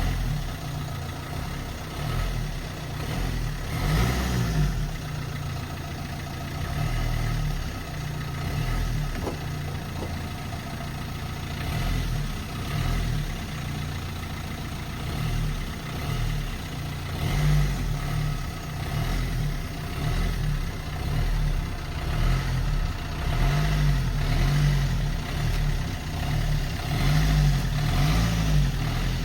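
Car engine idling and being revved again and again with the accelerator pedal, the engine note swelling and dropping back every few seconds.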